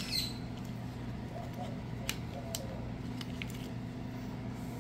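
A steady low hum, with a few faint light clicks as the small plastic and brass parts and wires of a plasma cutter hand torch are handled.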